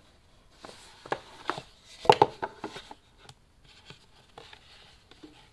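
A cardboard gift box handled by gloved hands as its lid is pulled off: a run of light taps, knocks and scrapes, loudest about two seconds in, then a few faint ticks.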